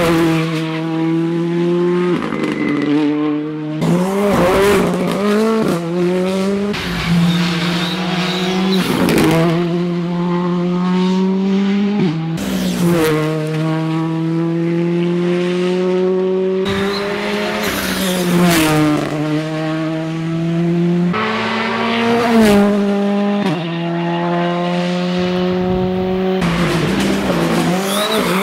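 Rally cars driven hard through bends on a tarmac stage, one after another. The engines rev high and the pitch drops sharply at each gear change, with sharp breaks between the runs.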